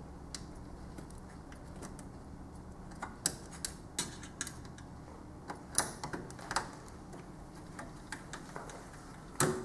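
Irregular light clicks and ticks from a screwdriver and small screws being handled and driven into a TV's circuit board and metal chassis. A sharper click comes near the end.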